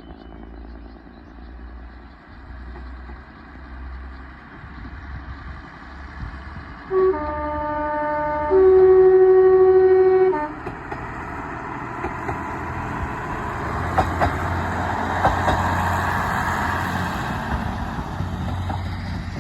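A diesel locomotive's two-tone horn sounds over a low engine rumble. It gives a short high note, then a lower note for about a second, then the high note held for about two seconds. The train then passes, its running noise swelling and fading again near the end.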